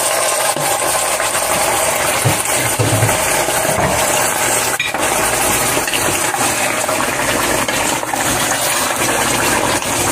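Yogurt-marinated beef chunks sizzling steadily in hot oil in a cooking pot, with a few knocks and scrapes of a wooden spoon stirring the meat.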